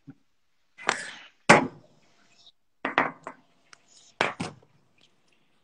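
Four short knocks and bumps with sharp onsets, the loudest about a second and a half in, with a few faint clicks between.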